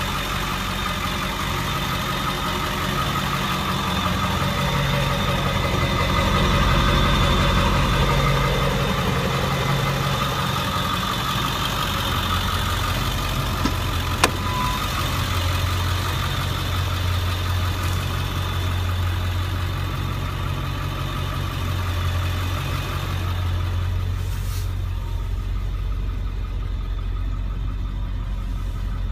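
A 2002 Ford F-350's 7.3 L Power Stroke turbo-diesel V8 idling steadily, with one sharp click about halfway through. The sound turns duller near the end.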